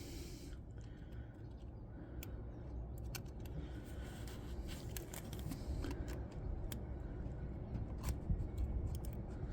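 Scattered light metallic clicks and small scrapes of hand tools working on the distributor's contact points, over a low steady background rumble.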